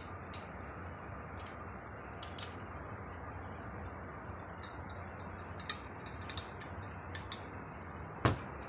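Small metal clicks and taps of alternator parts and tools being handled on a workbench: a few scattered ones, then a quick cluster past the middle and one sharper knock near the end, over a steady low hum.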